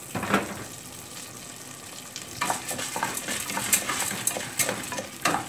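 Popcorn kernels sizzling in hot oil and melted butter in an aluminium pot, not yet popping. From about two and a half seconds in, a wooden spatula stirs them, with quick scraping clicks against the pot.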